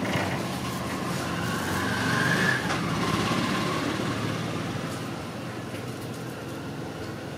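A motor vehicle engine running steady, swelling louder about two to three seconds in, with a higher whine at its loudest, then easing off.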